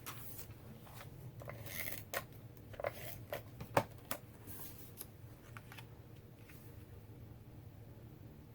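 Cardstock being handled and layered by hand: paper rustling with a string of light taps and clicks, the sharpest about four seconds in, dying away after about six seconds.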